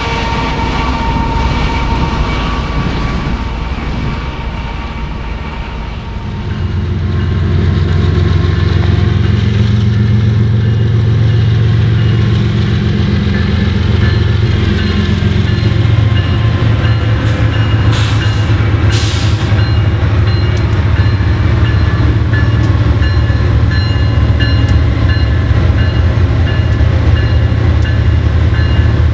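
A lead consist of four BNSF diesel locomotives approaching and passing at track speed, pulling an intermodal stack train. A horn chord trails off in the first second. The deep engine rumble then swells from about six seconds in and stays loud as the units go by, with wheel-on-rail clatter.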